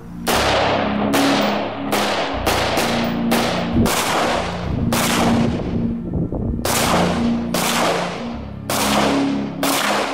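Del-Ton DT Sport AR-15 rifle firing about a dozen semi-automatic 5.56 mm shots at an uneven pace, some in quick pairs less than half a second apart, others a second or more apart. Background music plays underneath.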